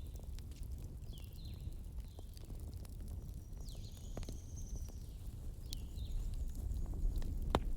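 Wood campfire burning, with a low steady rumble, scattered crackles and one loud pop near the end. Several short high falling chirps sound over it.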